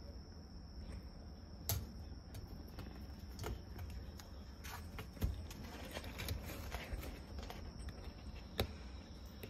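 Scattered light taps and scratches of a kitten's paws and claws on the cloth-covered cardboard edge of its pen, with a few sharper knocks among them. A faint steady high whine runs underneath.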